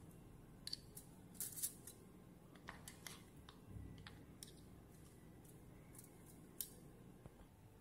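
Faint, scattered clicks and scrapes of two metal spoons against each other as sticky lumps of chocolate mixture are scooped up and pushed off onto aluminium foil.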